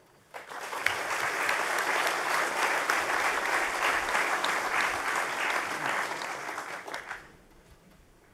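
Audience applauding: a dense run of many hands clapping that starts about half a second in, holds steady for several seconds, then fades out and stops about seven seconds in.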